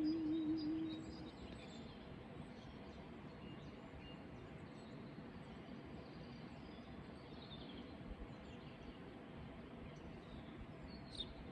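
Faint outdoor background with scattered short bird chirps. A held low tone fades out in the first second or so.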